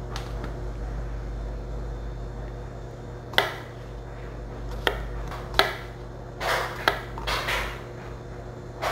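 A knife cutting a baby red potato on a plastic cutting board: about four sharp knocks of the blade on the board in the second half, with a couple of brief slicing sounds among them, over a steady low hum.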